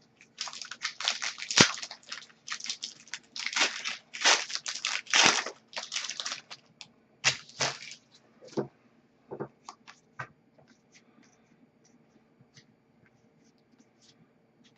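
A hockey card pack wrapper being torn open and crinkled, in a rapid run of rustling strokes for about the first seven seconds. After that come a few sparser, lighter clicks and rustles as the cards are handled.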